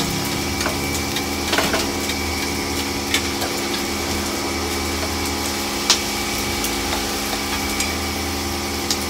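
Pork pieces deep-frying in a large wok of hot oil, a steady sizzle, over a steady machine hum. A few sharp clicks of a utensil against the pans, the loudest about six seconds in.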